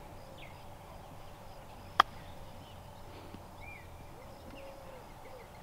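A golf club striking the ball once on a short chip shot toward the green: a single sharp click about two seconds in.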